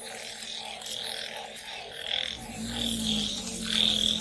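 Frogs calling in chorus, with calls repeating about twice a second over a faster chirping. A steady low hum joins about two and a half seconds in.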